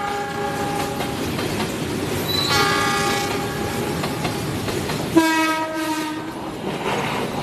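Freight train of tank wagons rolling past with a steady rumble and clickety-clack of wheels on rail. Train horns sound over it: a blast fading out in the first second, a short one about two and a half seconds in, and a louder blast starting sharply about five seconds in, lasting about a second; near the end a second train running in on the near track adds to the noise.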